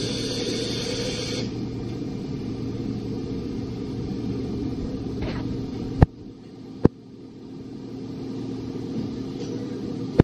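Toshiba BTD-200QF CNC horizontal boring mill running with a steady mechanical hum as its spindle head travels up the column. About six seconds in the hum drops, with two sharp clicks, then a quieter hum swells again and there is another click at the end.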